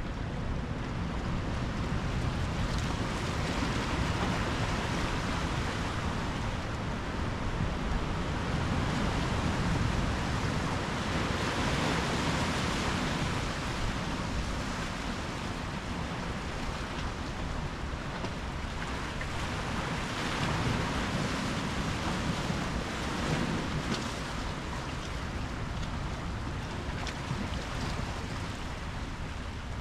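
Ocean surf washing ashore: a steady rush of breaking waves that swells and eases every several seconds.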